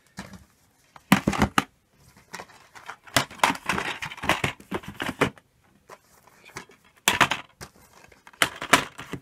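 Plastic DVD and Blu-ray cases being flipped through in a plastic storage drawer: clusters of sharp clacks and knocks as the cases hit and slide against each other, with rustling between them.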